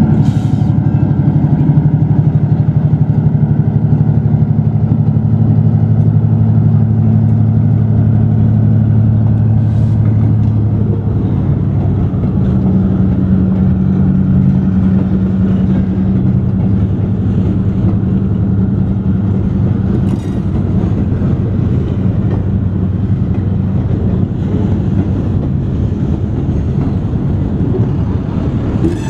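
Diesel switcher locomotive's engine running loudly and steadily close by, its low engine note changing about eleven seconds in.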